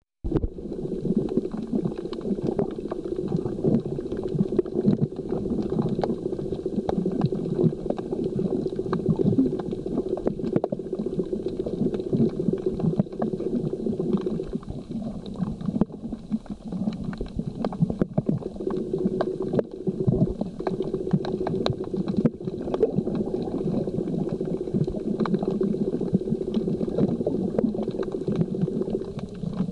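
Underwater sound at the seafloor: a dense crackle of small clicks over bubbling noise, with a steady low hum underneath that drops out briefly about halfway through and again near the end.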